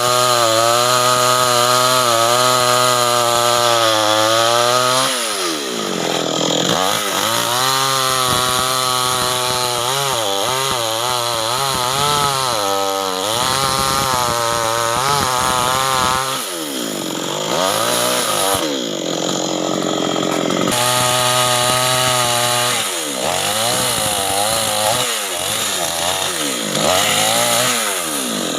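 Two-stroke chainsaw running at high revs while cutting acacia wood, its engine pitch repeatedly sagging under load and climbing again as the chain bites and frees, with the deepest drops about five seconds in and again around seventeen seconds.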